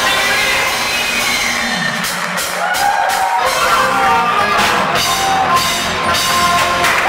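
Large children's choir singing a pop-rock number with a live band of electric guitars, congas and drum kit. The bass and drums thin out for a moment about two seconds in, then the voices carry on over the band.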